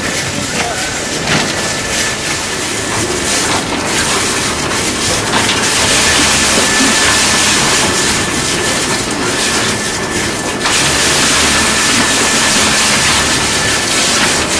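SSI Dual-Shear M100 tire shredder and trommel line running: a loud, steady mechanical din with hiss, scattered clattering knocks and a faint steady high whine. The noise grows brighter and louder about halfway through.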